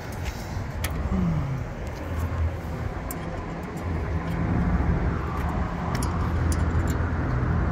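A vehicle engine running steadily with a low hum, and a short falling drone about a second in. Over it come a few light metal clicks from Allen wrenches being handled and fitted to the fan hub's set screw.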